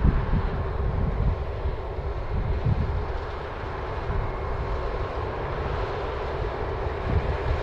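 New Holland combine harvester running steadily while harvesting barley, a constant mechanical drone with a faint steady whine, and wind rumbling on the microphone.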